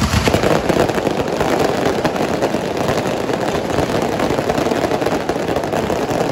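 Firework fountains and firecrackers crackling and fizzing in a dense, unbroken stream.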